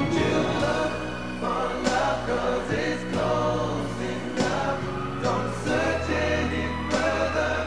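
Male pop vocal group singing a song together in harmony over backing music with a steady beat.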